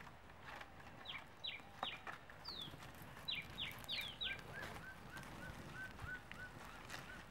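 Birds calling: a string of short, high notes that each drop in pitch, then a quicker run of softer repeated notes, about four a second, from about four seconds in.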